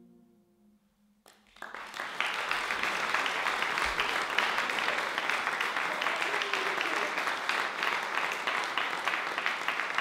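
The last held chord of the brass-and-piano duet dies away. About a second and a half in, audience applause starts and continues steadily.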